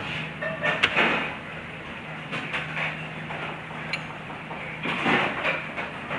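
Tableware handled on a metal serving tray: a small ceramic bowl and spoon set down with a few sharp clinks and knocks, the loudest about a second in, over a steady low hum.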